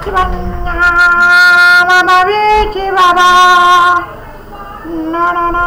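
A voice singing long, held high notes that step up and down in pitch, stopping about four seconds in and starting again near the end.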